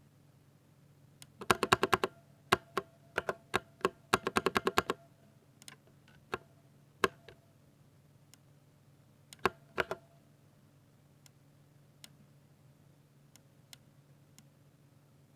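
Typing on a Ducky 60% mechanical keyboard with Cherry MX Silver linear switches: two quick bursts of rapid keystrokes in the first half, single key presses between them, then scattered strokes that thin out to a few faint taps.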